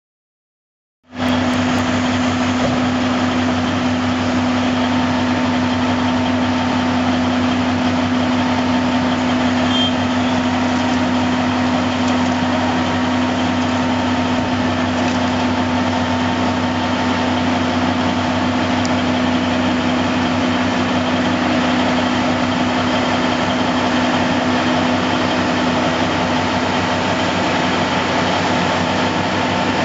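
Heavy diesel engines idling steadily, from a semi dump truck and an asphalt paver, with a strong low drone. The sound cuts in suddenly about a second in.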